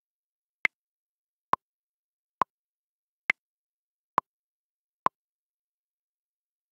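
Beat-pulse count-in: six evenly spaced metronome-style clicks, a little under one a second, with the first and fourth clicks higher-pitched than the others, marking every third beat. They set the tempo before the recorded extract begins.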